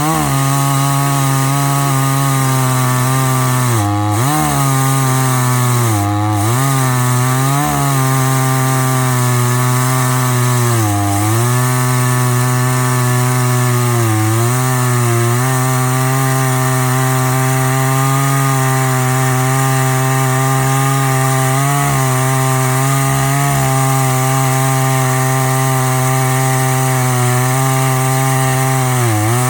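Chainsaw mounted in an Alaskan mill running at high revs through a log. Its pitch dips briefly several times as the chain bites, and it runs steadier in the second half. The mill is cutting poorly, which the owner suspects is a dull chain.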